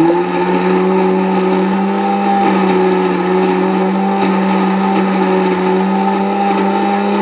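Electric mixer grinder running at speed, grinding onion, ginger and garlic in its steel jar into a paste: a loud, steady motor hum with a constant pitch and a rattling grind of the contents over it.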